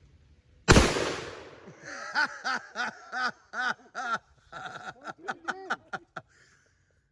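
A single shot from a .454 Casull revolver, a loud sharp crack under a second in. It is followed by several seconds of a man's rhythmic, breathy laughter.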